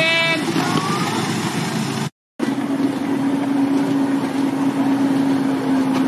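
Miniature railway train running along the track, with a horn-like note cutting off in the first half-second. After a short break, a miniature locomotive approaching with a steady low hum over the rumble of its wheels.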